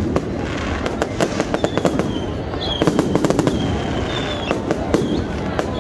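Fireworks display going off in rapid succession: a dense run of sharp bangs and crackles, with several short high whistles among them.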